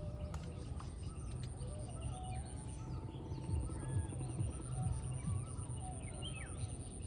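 Outdoor ambience of several birds chirping and calling in short, scattered notes, over a steady high-pitched insect trill and a constant low rumble.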